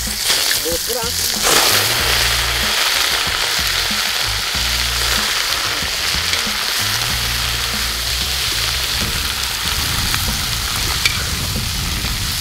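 Raw oxtail pieces searing in hot oil in a large steel wok: a loud, steady sizzle that jumps up about a second and a half in as the meat goes into the pan. This is the searing stage before the sauté.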